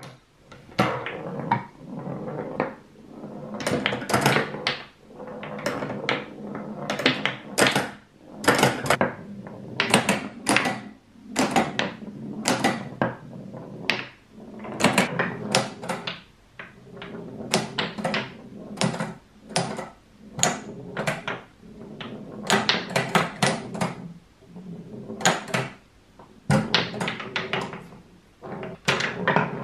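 Homemade wooden pinball table in play: a series of irregular sharp wooden clacks and knocks as the flippers are worked and the ball strikes the flippers and bumpers, over the low rumble of the ball rolling on the plywood playfield.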